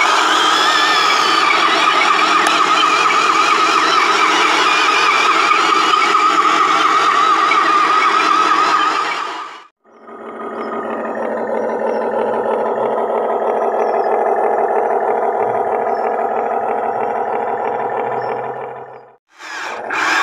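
Huina radio-controlled model excavator running, a steady mechanical whine with an engine-like drone. It cuts out abruptly twice, about ten seconds in and again near the end, each time coming back at a different pitch.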